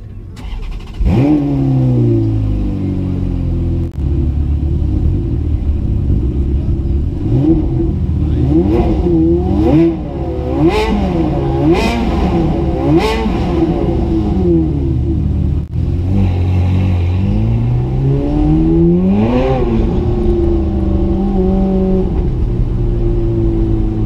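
Sports car engine started about a second in, flaring and settling to a steady idle, then blipped through a quick run of sharp revs, with one more rev near the end.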